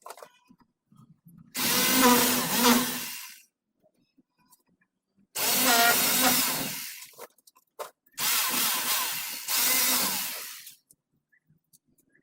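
Power drill run in four bursts of one and a half to two seconds each, the last two back to back.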